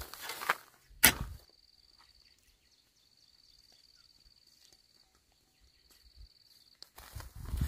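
A single sharp knock about a second in, then a long quiet stretch with only a faint steady high-pitched tone, before loud knocking and rustling starts up again near the end.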